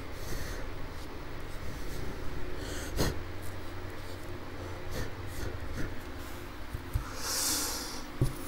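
Quiet handling sounds as a cotton ball wipes a GoPro Hero 9's screen and clear plastic screen-protector film is handled, with a sharp click about three seconds in and a short breath near the end, over a low steady hum.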